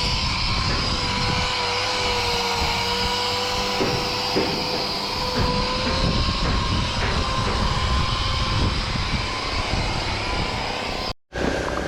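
A machine running with a steady, slightly wavering whine over a dense mechanical clatter of small knocks; the sound cuts out abruptly for a moment near the end.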